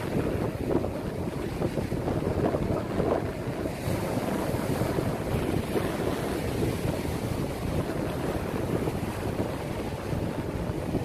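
Ocean surf breaking and washing up a sandy beach, with wind buffeting the microphone in gusts.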